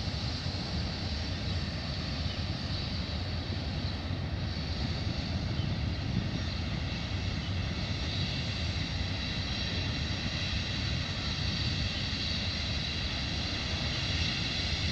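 Canadian Pacific freight train's cars rolling steadily past at a distance, a continuous rumble of wheels on the rails with a high hiss.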